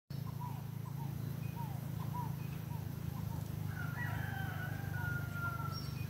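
A rooster crows once, a long call of about two seconds starting a little past halfway, over short repeated bird chirps and a steady low hum.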